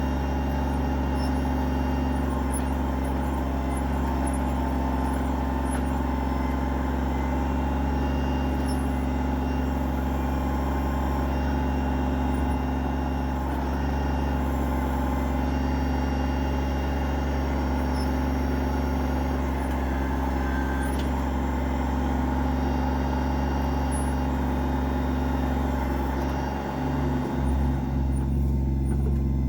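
Kubota BX25D compact tractor's three-cylinder diesel engine running steadily under load while working the backhoe, with a brief dip near the end.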